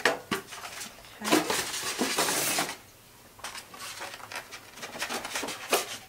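Unpacking noises: scattered knocks and clatter of items handled on a countertop, with a loud scraping rustle of packing material for about a second and a half near the middle as the espresso machine is worked out of its foam insert.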